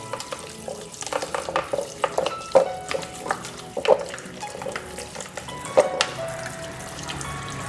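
Irregular knocks and clatter of hard parts being handled and scrubbed, each knock ringing briefly, over a crackly scraping noise, with faint background music.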